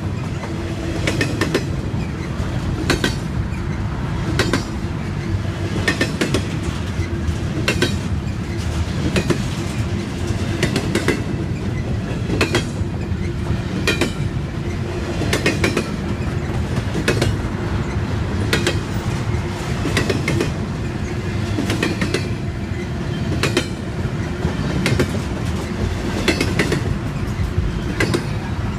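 Double-stack container freight train rolling past: a continuous rumble of steel wheels on the rails, with sharp clicks about every second and a half as wheel sets cross rail joints.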